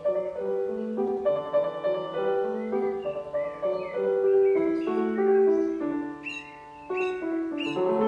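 Gentle piano music with birdsong mixed in; a few short, high bird calls come near the end.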